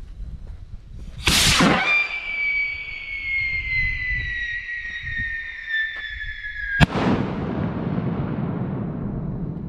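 8 oz whistle rocket launching with a loud rush, then one shrill whistle that slides slowly down in pitch for about five seconds. A sharp bang cuts it off and rolls on as a long echo.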